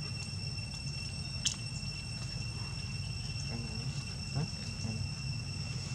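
Steady high-pitched insect drone, with a single sharp click about one and a half seconds in and a few faint, short rising squeaks in the second half.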